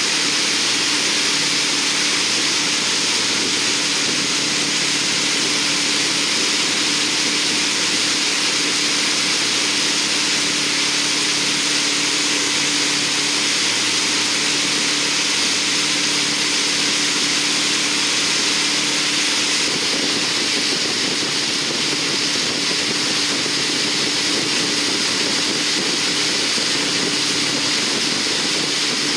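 Tow boat running steadily at speed, its engine giving a constant low hum under the loud rush of the churning wake and wind.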